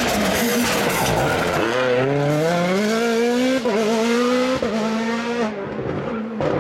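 Rally car accelerating hard, the engine rising steadily in pitch after a second and a half of rushing noise. Two quick upshifts come about three and a half and four and a half seconds in, and the sound falls away near the end.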